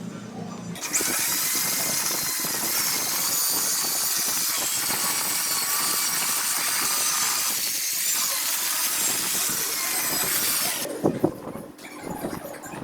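A power tool running steadily on metal for about ten seconds as a loud, high-pitched hissing noise, starting about a second in and cutting off near the end, followed by a few lighter knocks.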